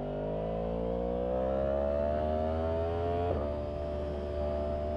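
Yamaha MT-10's crossplane inline-four engine pulling under way, its note rising steadily as the bike accelerates, then holding level after a brief break about three seconds in.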